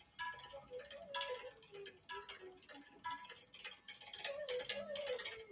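Soft background music: a slow melody of held notes that bend in pitch, with new notes starting about once a second.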